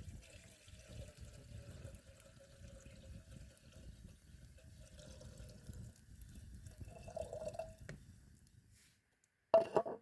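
Liquid pouring and dripping, ending with a short loud burst just before the end after a moment of near silence.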